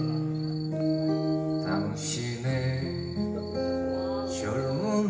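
Acoustic guitar playing a slow, gentle song intro of sustained chords, with a fresh strum about two seconds in and again near the end.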